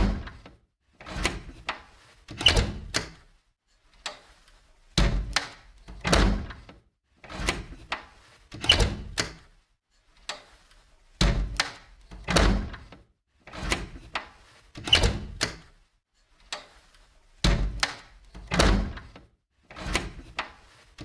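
An old window being opened and closed again and again, each movement a short clattering rattle of knocks ending in a thunk. They come in groups of three or four, with brief pauses between groups.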